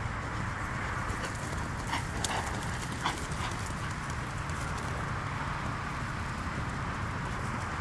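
Small pony's hoofbeats on grass as it carries a rider, with a few sharp clicks about two to three seconds in, over a steady rushing noise.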